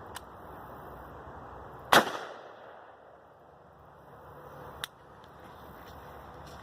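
A single rifle shot firing a .223 round, a sharp crack about two seconds in with a short echoing tail. A smaller sharp click follows a few seconds later.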